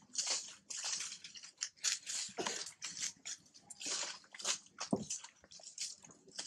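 Close, wet smacking and squishing mouth sounds from a monkey cradling her infant, coming irregularly a few times a second.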